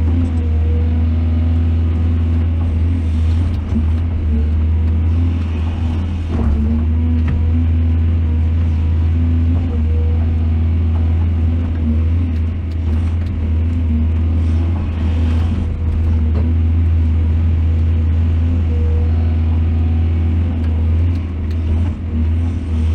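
Heavy diesel engine of a mining excavator running steadily under load, a loud low rumble with a few faint knocks.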